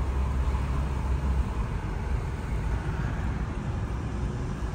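Steady road and engine noise of a car driving: a low rumble under an even hiss.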